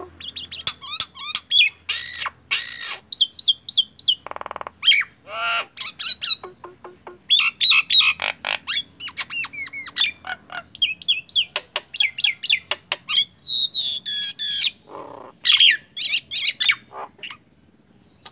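Common myna singing a long, varied song of rapid whistles, chirps and clicks mixed with harsh squawks, breaking off shortly before the end.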